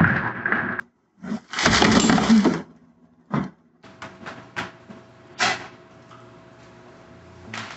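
A loud crash of something breaking, lasting about a second, then a few sharp knocks and clinks.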